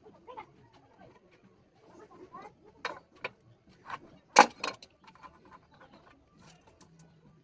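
Faint bird calls with a handful of sharp knocks clustered around the middle, one much louder than the rest.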